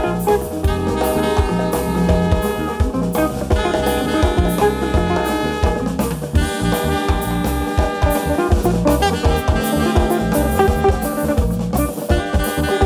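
Live jazz band: trumpet and alto saxophone playing a melody together in phrases over a drum kit and guitar.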